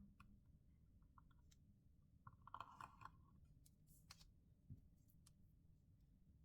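Near silence broken by a few faint clicks and taps of small smartphone parts and tools being handled, with a short cluster of clicking and a brief squeak about two and a half seconds in.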